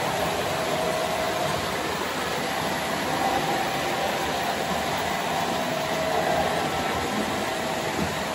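Model freight train cars rolling past on the track close by: a steady rolling rumble of the wheels on the rails.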